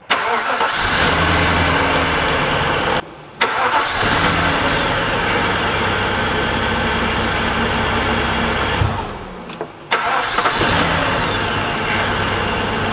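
Audi S8's 4.2 V8 being cranked and started from the open engine bay, running in three stretches of a few seconds, each cut off abruptly. The engine has one cylinder missing while it runs.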